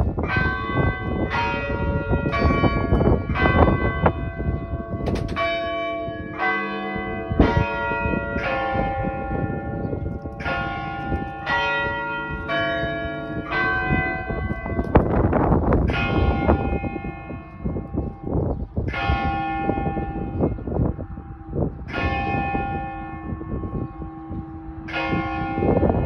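Several large church bells swinging in a steeple and pealing together. The strokes fall at different pitches, about one to two a second, each ringing on and overlapping the next.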